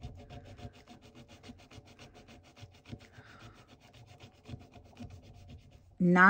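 Scraping off a glitter scratch-off circle on a paper savings-challenge sheet with a thin pointed tool, in quick, even rubbing strokes.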